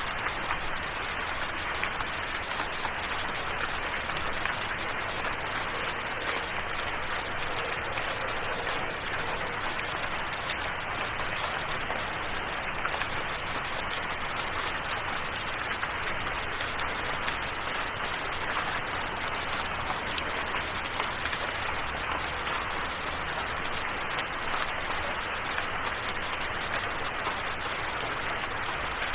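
Steady rain falling, an even hiss of fine pattering drops that does not change.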